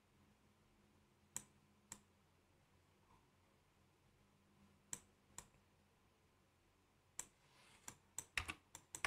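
Computer mouse clicking against near silence: two pairs of clicks, each pair about half a second apart, then a quicker run of clicks in the last two seconds.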